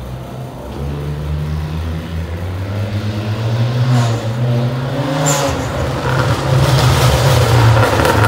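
Turbocharged car engine running under way, steadily getting louder, with a short rising whine about four seconds in.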